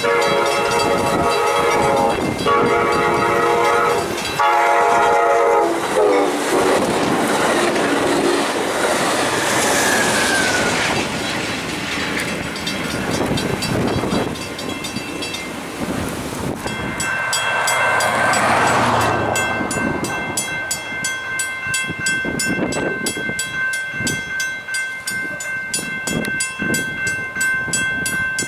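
A diesel locomotive's horn sounds three long blasts as the train approaches. Rushing wind and train noise follow. From a little past halfway a railroad crossing bell rings steadily with rapid strikes.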